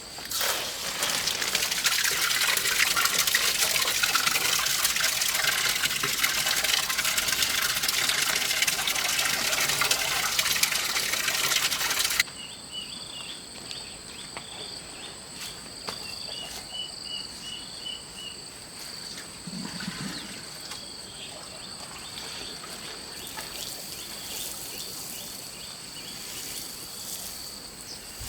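Running water with a loud, even rush for about twelve seconds, then an abrupt cut to quieter countryside ambience: insects trilling steadily, with a short run of chirps.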